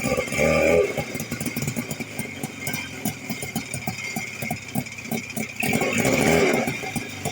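Buran snowmobile's two-stroke engine running at low revs with an uneven pulsing beat. The throttle is opened briefly at the start and again about six seconds in.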